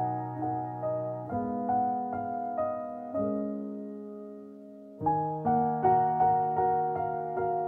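Background piano music: gentle, evenly spaced notes, a chord left to ring and fade about three seconds in, then the playing picks up again about five seconds in.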